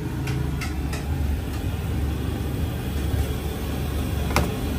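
Steady low rumble of outdoor street noise, with a few faint clicks in the first second and one sharper click near the end.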